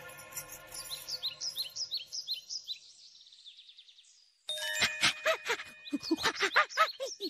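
Cartoon sound effects: a run of high, falling chirps and tinkles that fades out, then, after a short pause, a rapid string of squeaky chattering calls from a cartoon monkey.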